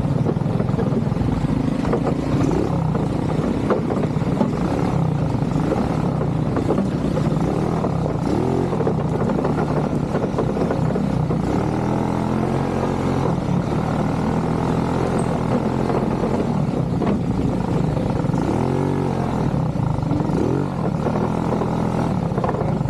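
ATV engine running under way, its pitch rising and falling several times with the throttle.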